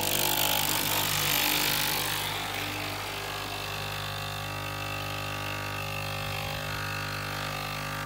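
Breville Barista Pro espresso machine steaming: its pump buzzing steadily under a hiss of steam, the hiss louder for the first two seconds, then both cutting off abruptly at the end. Steam is also escaping from the group head, which the owner puts down to a pressure valve that needs tightening.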